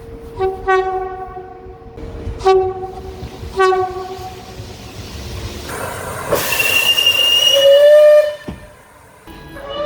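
Train horn sounding three short blasts, then a louder stretch of train noise with high held tones, which cuts off sharply near the end.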